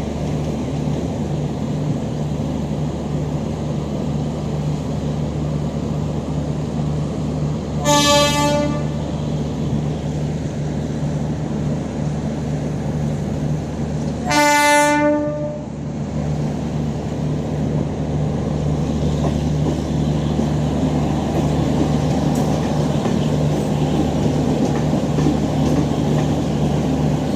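Trains running with a steady rumble and low hum, broken by two short train-horn blasts about six seconds apart.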